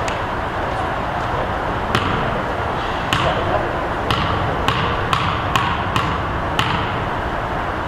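Basketball being dribbled on a gym floor: about eight bounces starting about two seconds in, quickening, then stopping near the end, over a steady murmur of voices.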